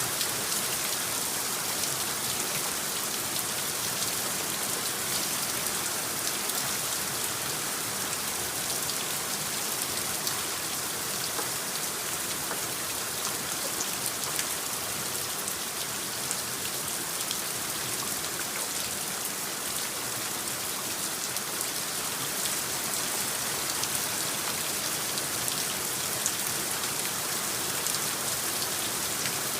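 Steady rain falling, a continuous hiss with many small drop patters.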